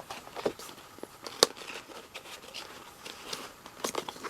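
Album contents being handled: scattered paper and plastic rustles and taps, with one sharp click about a second and a half in.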